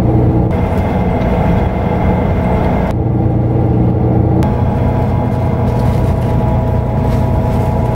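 Steady low rumble of a coach bus travelling at motorway speed, heard from inside the passenger cabin, with a steady engine hum over the road noise that shifts slightly a few times.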